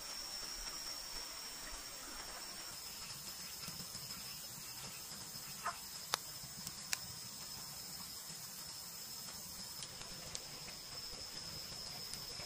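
A steady, high-pitched trill of night insects, with a few sharp crackles from a wood fire burning in a clay stove about halfway through and once more later.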